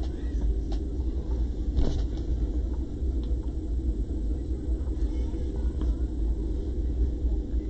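Steady low background rumble with a couple of faint clicks.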